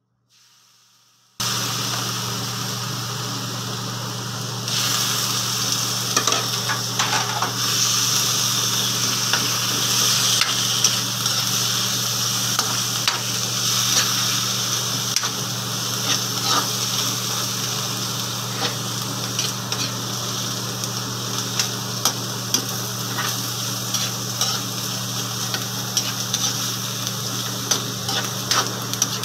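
Pieces of pork frying in hot oil in a wok, sizzling steadily, with a spatula scraping and clicking against the pan as they are stirred. The sound starts abruptly a moment in, the sizzle swells about five seconds in, and a steady low hum runs underneath.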